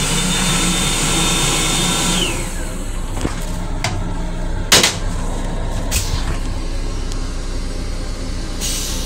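Steady low rumble of an M7 commuter railcar running, heard inside its restroom, with a high motor whine and rushing air that wind down and stop about two seconds in. About halfway through there is a sharp knock from the toilet seat being handled, and a lighter click a second later.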